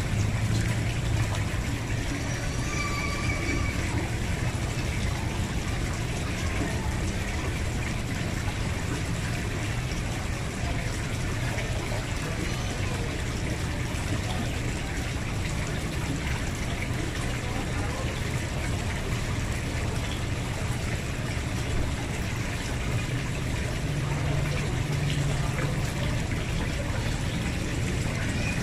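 Steady trickling and splashing of a fountain's stream of water pouring from a frog-statue spout into a koi pond.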